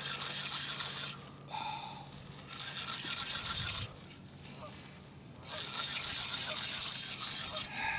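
Spinning or casting fishing reel cranked in three bursts with pauses between, a rapid whirring and clicking as a hooked rockfish is reeled in.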